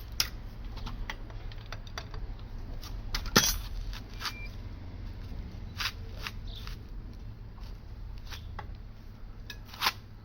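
Metal tools clinking and knocking as they are handled, with scattered short clicks and a louder clank about three and a half seconds in and another near the end.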